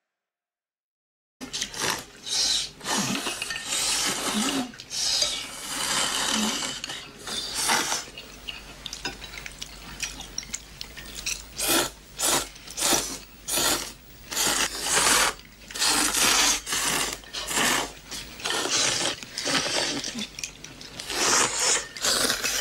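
People slurping noodles in many short, irregular bursts, with chopsticks and bowls clinking now and then. The slurping starts after about a second and a half of silence.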